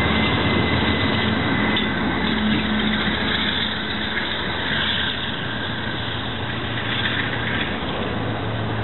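GE Dash-9 diesel locomotives pushing on the rear of a heavy freight train up a grade, with a steady engine drone and rail noise that eases off a little as they draw away.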